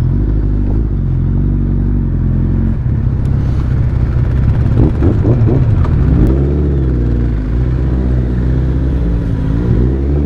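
Motorcycle engines running at low revs in low gear, the throttle opened and closed in short rises and falls as the bikes pick their way over rough rocky ground. A few sharp clicks sound over the engines.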